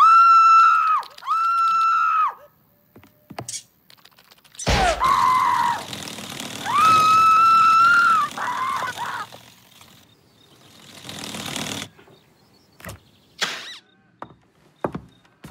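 A woman screaming in fright: two long high screams, then a sudden loud crash a few seconds later under a third long scream, followed by a few sharp knocks near the end.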